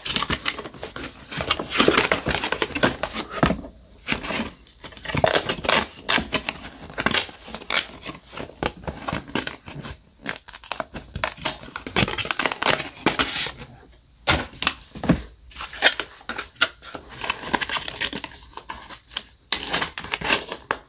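Cardboard display box being put together by hand: irregular rustling, crinkling and scraping of folded paperboard and printed paper cards, with light taps as small boxes are set in place.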